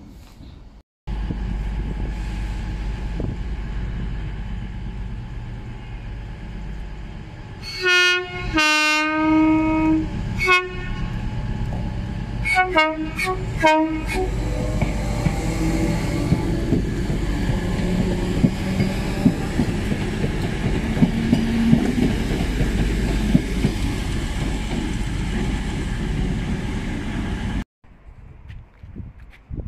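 Merseyrail electric train running with its wheels clicking over rail joints, sounding its horn. It gives a short blast, a longer one of about a second and a half, then several short toots between about eight and fourteen seconds in. The train sound cuts in about a second in and stops abruptly near the end.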